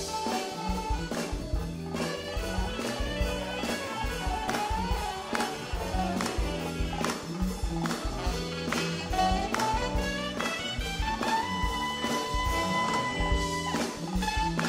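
Live soul band playing an instrumental passage over a steady drum beat, with a long note held in the last few seconds.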